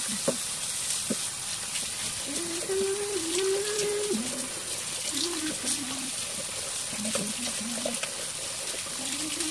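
Kitchen tap running steadily into a stainless steel sink, splashing over leafy greens in a colander as hands rub and rinse them, with small clicks and clatters. A wordless voice comes and goes over the water.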